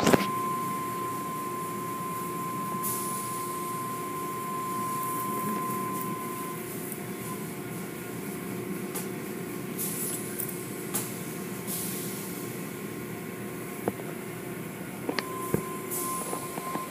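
Automatic car wash tunnel machinery running: water spraying and cloth curtain brushes working over a car, under a steady mechanical hum, with occasional short knocks. A high steady whine drops out about six seconds in and comes back near the end.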